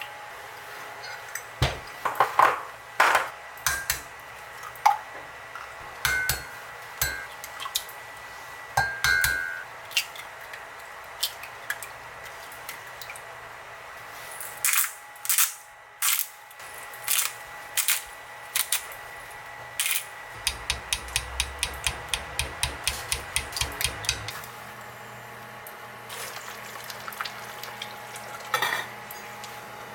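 Kitchen handling sounds: dishes and utensils knocking and clinking in scattered strikes. Near the end comes a quick regular run of ticks, about four a second, over a low hum that stops abruptly.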